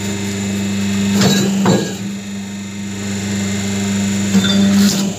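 Double-die paper plate making machine running with a steady electric hum. Two short bursts of mechanical clatter come through it, about a second in and again near the end, as the die works.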